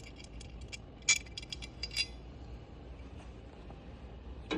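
Small metal bolts and lock nuts clinking together as they are handled: a run of light metallic clinks through the first two seconds, then a single knock near the end.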